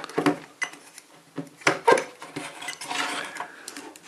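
Irregular clicks and clacks of hands working a multimeter and a small plastic contactor: test probes being set on the coil terminals and the meter being adjusted, with a cluster of sharper clicks a little under two seconds in.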